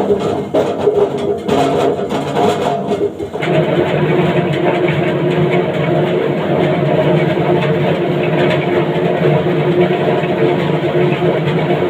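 Potato peeling machine starting up suddenly: it clatters for the first three seconds or so, then settles into a steady running noise with a constant hum.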